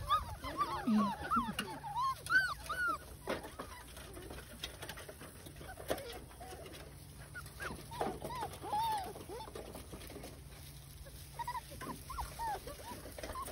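Walker hound puppies whimpering and squealing in short, high, arching cries that come and go, with a few light knocks among them.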